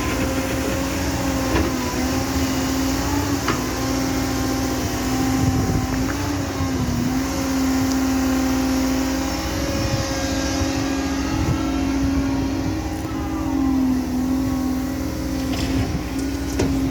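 Caterpillar M315F wheeled excavator working: the diesel engine and hydraulics run steadily with a strong whine that sags briefly in pitch twice. A few sharp knocks come near the end.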